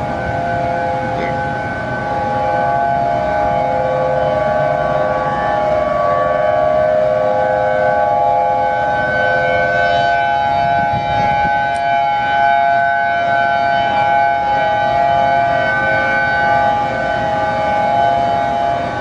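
Honolulu's outdoor civil defense warning sirens sounding the tsunami warning. Several sirens carry across the city in a steady, slightly wavering tone at a few overlapping pitches, held without a break.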